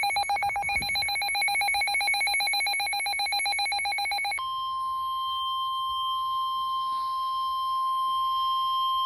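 Weather-radio emergency alert: a rapidly pulsing, buzzy electronic alarm tone for about four seconds, then a single steady high tone, the 1050 Hz warning alarm tone that precedes a tornado warning broadcast.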